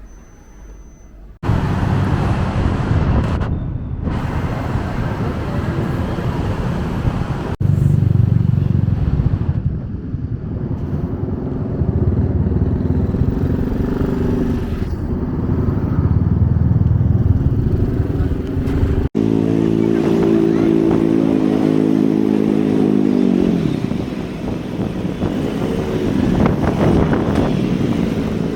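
Motor vehicle engine noise, a motorcycle-like engine running, across several abrupt cuts; about two-thirds of the way in a pitched engine note holds and then falls away.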